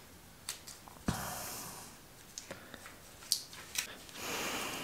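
Gloved hands handling masking tape on a drill bit: light clicks and taps, with two soft rushing hisses about a second long, one about a second in and one near the end.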